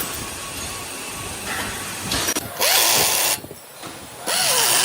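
A power tool run in two short bursts, each a loud hissing whirr of under a second.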